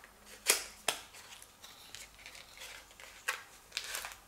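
Small cardboard box and paper wrapping handled by hand: a few sharp clicks and taps, the loudest about half a second in, with light paper rustling near the end.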